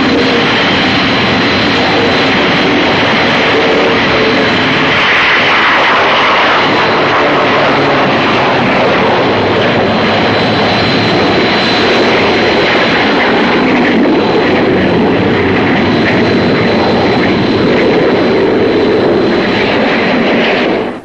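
Jet fighter engines running in a loud, steady rush with a faint high whine, swelling a little now and then as the jets fly low past.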